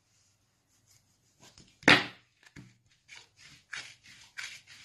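A kitchen knife cutting soft dough into pieces on a tabletop: one sharp knock about two seconds in, then a run of short, soft scraping strokes, a few a second.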